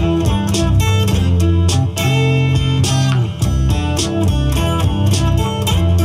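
An instrumental passage of recorded pop-rock with guitar, strong bass and a steady beat, played loud through a vintage Frazier Super Texan horn loudspeaker with its original alnico drivers and wood horn. It is picked up by a camera's built-in microphone, which squashes the dynamics and loses the low bass.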